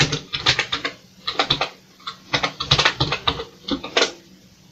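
Keystrokes on a Commodore VIC-20's full-travel keyboard as a LOAD command is typed, clicking in several quick runs with short pauses between them.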